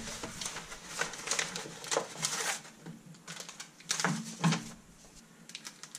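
Paper envelope and plastic packaging rustling and crinkling in irregular scrapes and crackles as a mailed package is opened and its contents handled.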